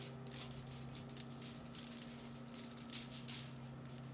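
Faint crinkling and rustling of aluminium foil in short irregular bursts, a few a second, as marshmallows are pressed into a banana lying on it. A steady low hum runs under it.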